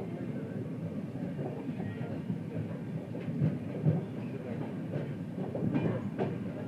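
Express passenger train running on the rails: a steady low rumble with irregular sharp clacks of the wheels over the track.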